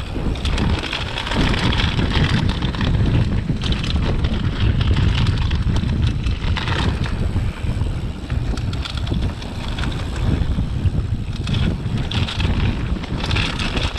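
Wind buffeting an action camera's microphone over the rumble of mountain bike tyres rolling fast on a dusty dirt trail, with small rattles and knocks from the bike over bumps.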